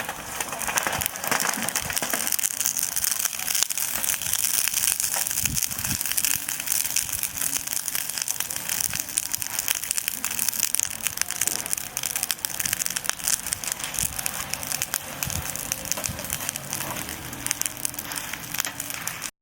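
Wood fire burning in a compact folding fire pit, crackling and popping continuously.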